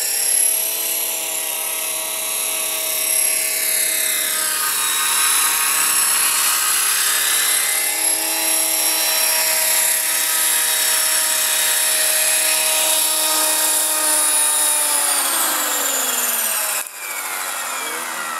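Electric RC helicopter (Align T-Rex 500 mechanics under a scale Bell 212 body) flying: the steady high whine of the brushless motor and gears over the whir of the rotor. Near the end the whine slides down in pitch as the rotor spools down. It breaks off abruptly and goes on quieter and lower.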